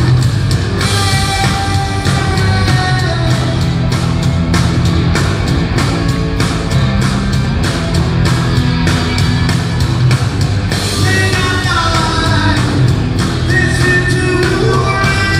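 Live rock band playing with two drum kits keeping a steady, fast drum beat under electric guitars and a male lead vocal.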